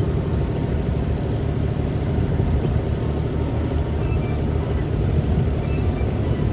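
Diesel engine of compact earthmoving machinery, a mini excavator and skid steer, running steadily under load with a low, even rumble.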